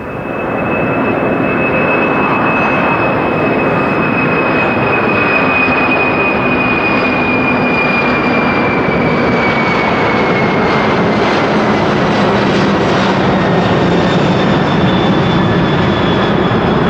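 Boeing 747-400 freighter's four General Electric CF6-80C2 turbofans at takeoff thrust as it climbs out past: a loud, steady jet rumble that swells in the first second, with a high fan whine that slowly falls in pitch.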